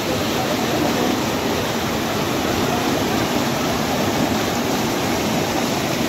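Fast mountain stream rushing and splashing over boulders: a steady, loud rush of white water.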